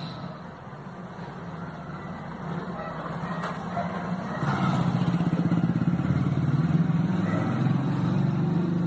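A motor vehicle's engine running, a low drone with a rapid pulse that grows louder about halfway through.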